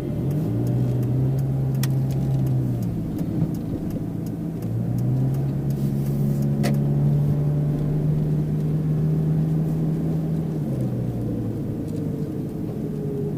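Mitsubishi Pajero Mini's small four-cylinder kei-car engine pulling the car along with road noise. The engine note rises just after the start, eases off around three seconds in, climbs again near five seconds and holds steady, then drops back near eleven seconds, following the driver's throttle through the backstreets.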